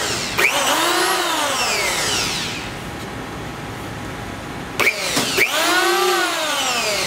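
Stanley STL630 750 W electric hand planer run briefly in the air with no wood under it, twice about five seconds apart: each time the motor and cutter drum whine up to speed and then wind down as it coasts to a stop.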